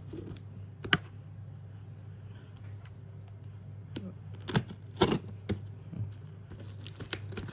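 Handling noise as a cardboard box is opened by hand: a few sharp clicks and knocks, the loudest about five seconds in, over a steady low hum.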